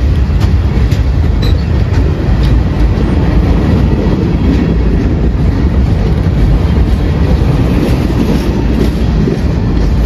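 Freight train passing at close range, a run of boxcars, centerbeam flatcars and tank cars: a steady loud rumble of steel wheels on the rails, broken by frequent sharp clicks and clacks as the wheels cross rail joints.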